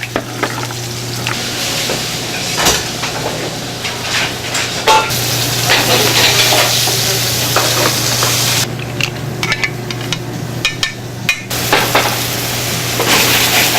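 Food sizzling in a hot pan, a steady hiss that swells and drops in stretches, with utensils stirring, scraping and clinking against the cookware over a steady low hum.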